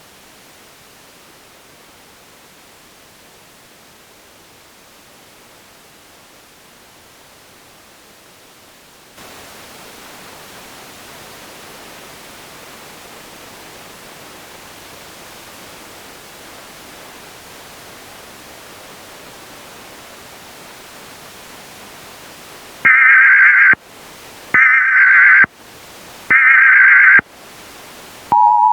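Steady static hiss, stepping up louder about nine seconds in. Near the end come three loud, roughly one-second bursts of the Emergency Alert System's warbling digital header tones, and at the very end the steady two-tone attention signal begins.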